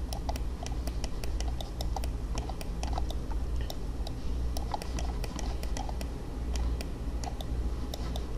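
Computer keyboard and mouse clicking at irregular intervals, a few clicks a second, over a steady low hum.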